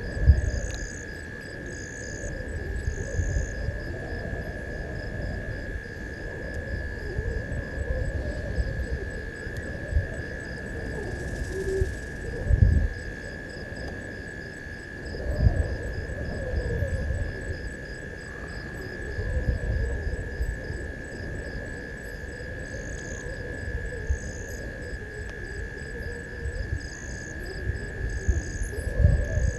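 Night insect chorus: a steady high-pitched cricket trill, with trains of short pulsing insect calls above it that come and go. Repeated low thuds and rustles, loudest about a third and half of the way in, stand out above the insects.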